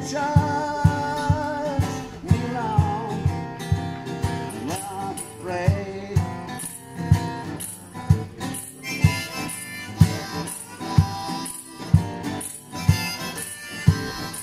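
Harmonica in a neck rack playing held and bending notes over a strummed guitar, with a steady low beat about twice a second.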